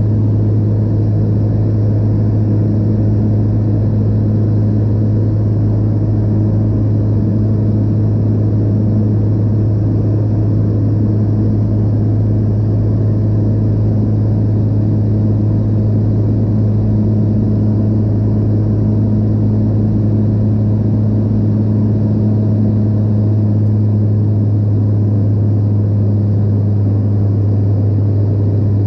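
De Havilland Otter floatplane's engine and propeller droning steadily in flight, a loud, even low hum with fainter higher tones above it.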